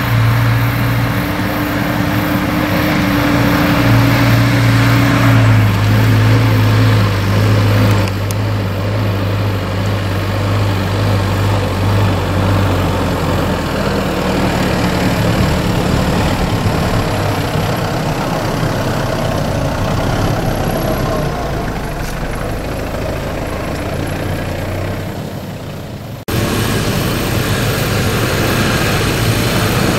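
SUV engine running at low, steady revs while the vehicle crawls along an off-road track. The engine note changes about halfway through, and the sound breaks off abruptly twice, about a quarter of the way in and near the end.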